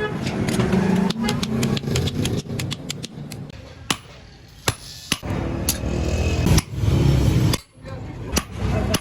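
Blacksmith's hammer striking hot metal, a string of sharp metallic blows at uneven spacing, some in quick succession, over voices and a low rumble.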